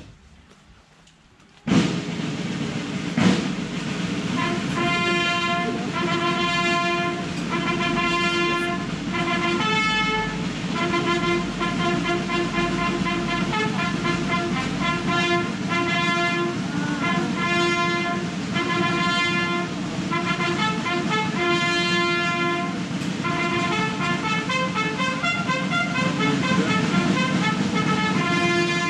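Brass band playing a slow piece in long held chords. It starts about two seconds in, after a brief, much quieter moment.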